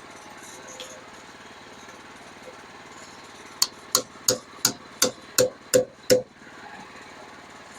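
Eight sharp, ringing hammer blows in quick succession, about three a second, beginning a little past the middle, over a small engine idling steadily.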